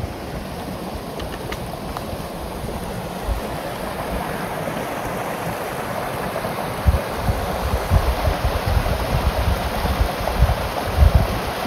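Strong wind rushing through the forest, building toward the end, with gusts buffeting the microphone in deep, irregular thumps.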